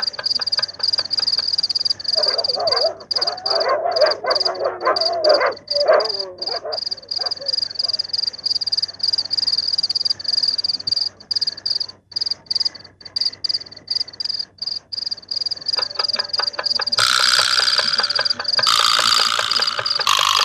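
Night chorus of frogs croaking over a steady, rapidly pulsing high insect trill. Near the end a wall clock begins striking midnight, about one stroke every second and a half.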